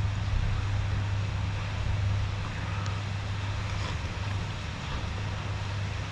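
Heavy rain pouring steadily, over a low steady hum, with a few faint slurps and chews of soup noodles being eaten.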